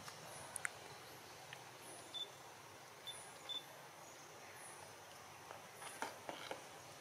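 Faint outdoor ambience: a steady soft hiss with a few light clicks and short high chirps, and a faint high chirp repeating about once a second.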